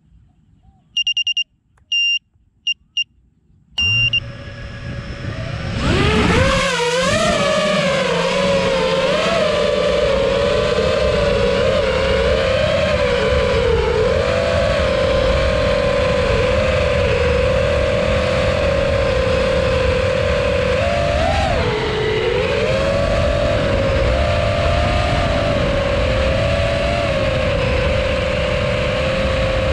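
A few short electronic beeps, then the FPV quadcopter's brushless motors (Ethix Konasty 2407 2200kv on 6-inch props) spin up about four seconds in and climb to a high throttle. The motors then run as a steady buzzing whine that wavers in pitch with the throttle, dipping briefly about three-quarters of the way through.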